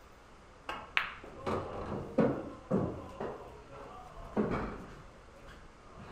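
A pool shot: the cue tip strikes the cue ball, then a run of about seven sharp knocks over the next few seconds as the balls hit each other and the cushions.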